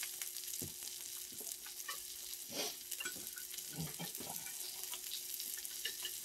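Thin beef slices sizzling on a tabletop grill, a steady hiss, with light clinks and scrapes of a spoon in a bowl and a fork on a plate scattered through it.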